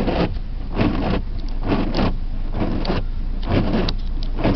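Inside a Dodge Neon ES at speed on a wet road: steady engine and tyre noise, with a swishing sound repeating about twice a second.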